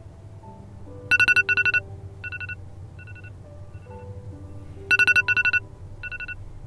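iPhone alarm going off: two loud bursts of rapid high beeps about four seconds apart, each trailed by fainter echoing repeats. Soft background music plays underneath.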